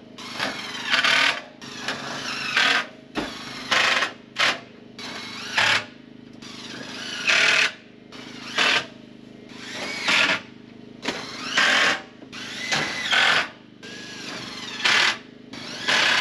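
Power drill driving screws to fasten wooden wall studs, in about a dozen short bursts that each build up and cut off sharply.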